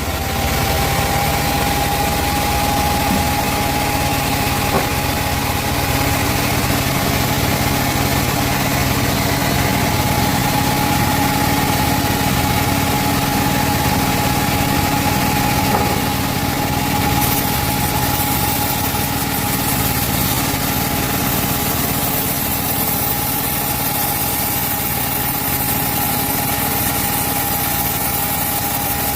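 Band sawmill running steadily: a constant engine hum with a steady high whine over it.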